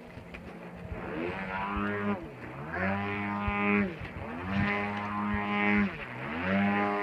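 Gas engine of a 111-inch Aeroplus Edge giant-scale RC aerobatic plane in flight: a GP123 with rear-exit canister mufflers turning a 27x11 carbon-fiber Falcon propeller. The engine note falls away and climbs back up about three times.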